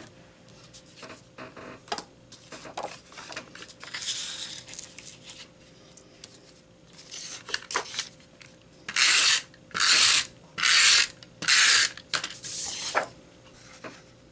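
Handheld adhesive tape runner drawn across paper in about five quick strokes, each a short rasping zip, starting about nine seconds in. Before that, sheets of paper rustle and tap as they are handled.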